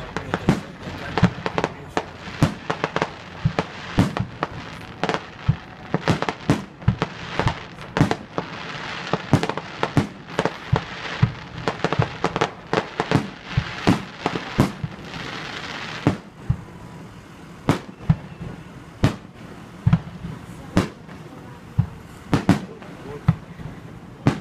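Aerial fireworks display: shells bursting in rapid, irregular bangs, several a second, over a background hiss. About two-thirds of the way in the hiss drops away, leaving fewer, separate bangs.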